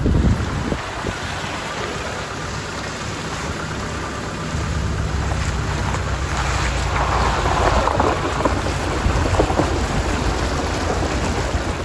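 A vehicle's tyres rolling slowly through muddy puddles on a dirt track, water and mud splashing and spattering over the low rumble of the engine. The splashing grows louder from about six seconds in.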